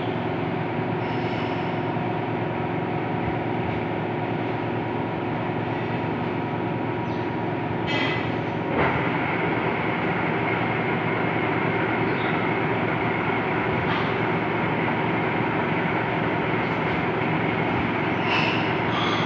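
Engine lathe running steadily: a dense mechanical drone from its gearing and spindle, with several steady tones. About nine seconds in there is a knock, and a higher whine joins.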